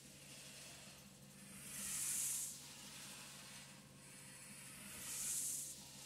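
Two slow breaths hissing through a breathing-resistance endurance mask, about two and five seconds in, over a steady low hum from the running vibration plate.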